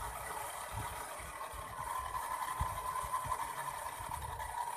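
Small electric motors and twin rotors of a toy RC Chinook helicopter running steadily with a whine, which gets a little louder about two seconds in. The rotors' downwash gusts against the microphone in uneven low thumps.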